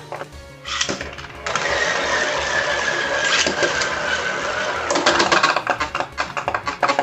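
Beyblade spinning tops launched into a plastic stadium and battling: a steady whirring hiss with a faint, slowly falling whine as they spin, then rapid clicking and clattering as the tops collide.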